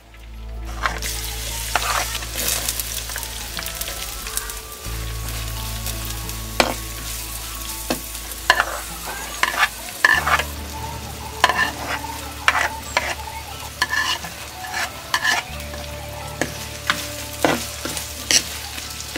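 Chopped red onions, green chillies and pandan leaves sizzle as they hit hot oil in a black clay pot. A wooden spoon scrapes and knocks against the pot again and again as they are stirred.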